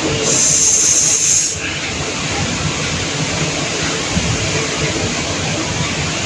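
Steady hiss of background noise, with a brighter, higher hiss lasting about a second near the start.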